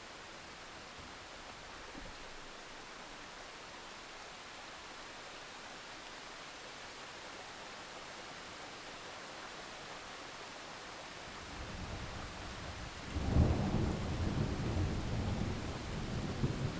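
Steady rain hiss, with a low roll of thunder building about two-thirds of the way through and turning loud and rumbling near the end.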